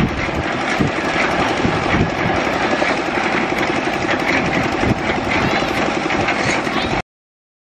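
August Kranti Rajdhani Express passenger train rushing past at high speed: a loud, steady roar of wheels on rail and air, cutting off suddenly about seven seconds in.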